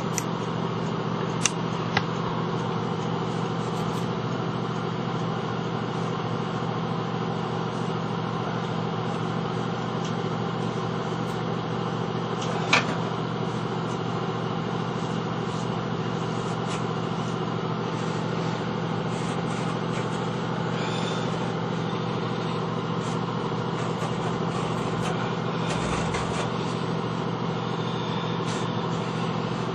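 Steady low mechanical hum, unchanging throughout, with a few short sharp clicks, the loudest about halfway through.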